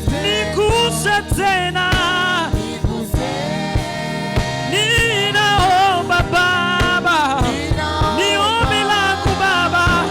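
Gospel band music with a steady drum beat under a melody line of sliding, ornamented notes.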